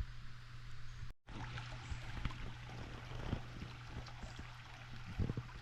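A small creek running low, its water trickling and rushing steadily over the stones. The sound cuts out briefly about a second in, and there are a few low bumps near the end.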